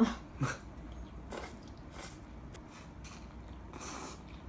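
Someone eating cold mentaiko udon with chopsticks. Two sharp clicks of the chopsticks against the bowl come at the start, then soft, wet mixing and slurping noises come every second or so.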